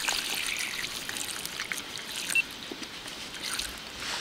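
A forest stream running steadily, heard as a continuous rushing hiss, with a few faint light clicks from handling.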